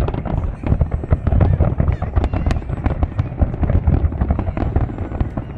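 Fireworks display: a dense, continuous run of bangs and crackles.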